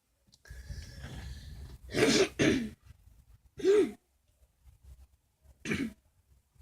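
A person coughing: two quick coughs about two seconds in, another about a second and a half later, and a fourth near the end.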